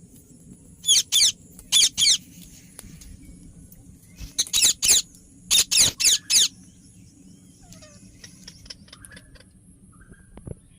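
Indian ringneck parakeet giving short, shrill, downward-sweeping screeches in quick runs of two to four, about ten calls in all, with a pause of a couple of seconds in the middle.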